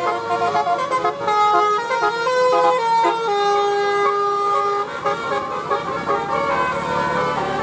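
Bus 'telolet' multi-tone horn playing a tune: several horn trumpets sound together, stepping quickly from note to note, with one note held longer about halfway through. A low engine hum runs underneath.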